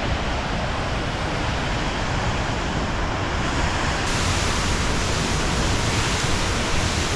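Steady rushing noise of a waterfall's cascading water.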